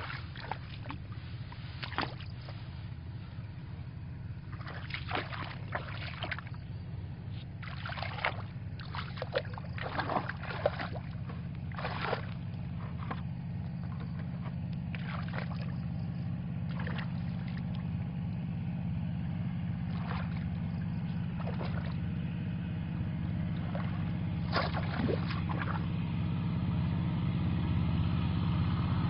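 Irregular splashing and sloshing of shallow muddy water as someone wades and works a bamboo basket fish trap, about a dozen short splashes. Under it a steady low engine hum grows louder toward the end.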